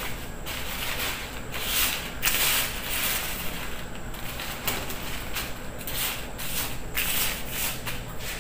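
Hands pushing and spreading crumbled dry noodles across newspaper: scratchy rustling of paper and brittle noodle bits in irregular strokes.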